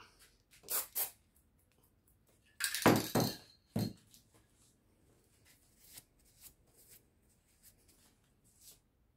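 Aerosol spray paint cans being handled and set down: two short knocks about a second in, a louder clatter about three seconds in with a sharp knock just after, then faint small taps.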